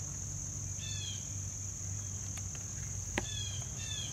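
Steady high-pitched chorus of crickets, over a low hum, with a few short chirps and some faint clicks, the clearest about three seconds in.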